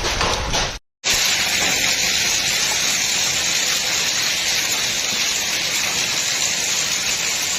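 Steady, dense hiss of a heavy downpour. Just under a second in, a harsher, rattling stretch of storm noise cuts off into a moment of silence before the downpour.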